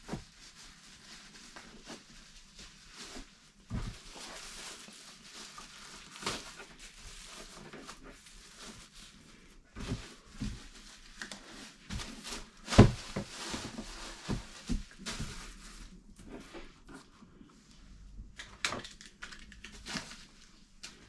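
Rustling and scattered knocks of a plastic lift-top trash can being handled and set up, with one sharp knock about 13 seconds in.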